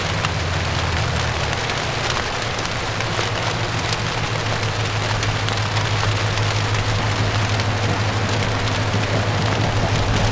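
Steady low drone of a diesel train engine, slightly louder in the second half, under a constant crackling hiss.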